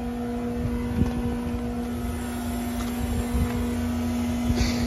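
Steady machine hum with a constant low tone and a low rumble beneath it, with a faint knock about a second in and another near the end.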